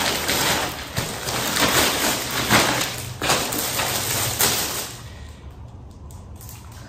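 A parcel being torn open and its packaging rustled by hand: a dense rustling noise with sharp ripping strokes for about five seconds, then only faint handling sounds.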